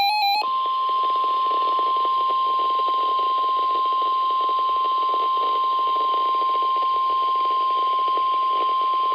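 NOAA Weather Radio 1050 Hz warning alarm tone, one steady high tone held for about nine seconds over a hiss of radio reception noise. It signals a severe thunderstorm warning. It starts just after the warbling end of the SAME digital header bursts.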